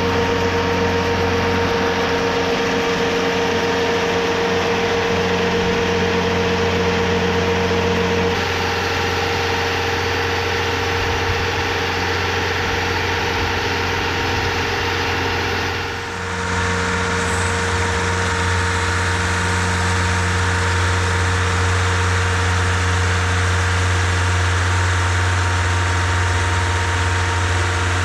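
TimberKing 2520 portable sawmill's engine running steadily under power, its tone shifting about eight seconds in and dipping briefly around sixteen seconds before carrying on.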